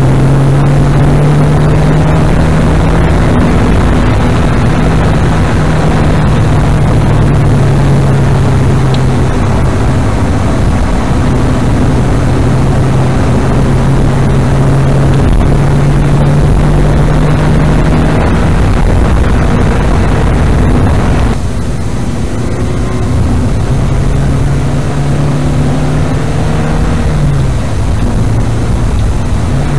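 Car engine running hard in a manual-gearbox car, a steady strong engine note with loud road and engine noise. About 21 seconds in the higher noise suddenly drops away, and near the end the engine pitch dips and climbs again, as at a gear change.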